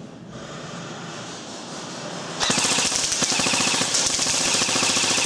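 Airsoft gun firing on full-auto: a rapid, even stream of sharp shots that starts abruptly about two and a half seconds in and keeps going.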